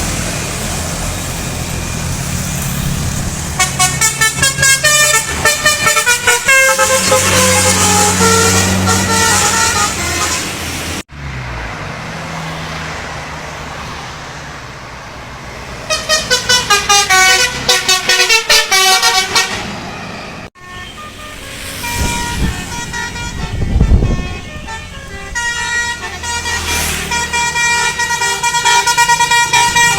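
Indonesian bus telolet horns, multi-tone musical air horns, playing quick runs of changing notes over a bus engine running. Two sudden cuts split it into three separate horn performances, the last with longer held notes.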